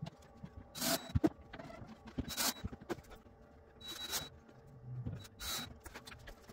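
Scattered knocks and sharp clicks of handling work and a stepladder being climbed down, with short hissing sounds about every second and a half.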